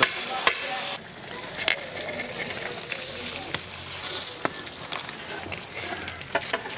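A long steel ladle scraping and stirring in a large steaming aluminium biryani pot. It is followed by rice being tipped from a steel bowl into the boiling vegetable masala, with scattered clinks and knocks of metal on metal.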